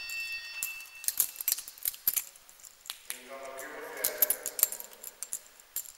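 Rapid small clicks and light metallic jingling, as of keys or small gear being handled, in two clusters: one about a second in and one around four seconds in. A steady high electronic tone cuts off about a second in.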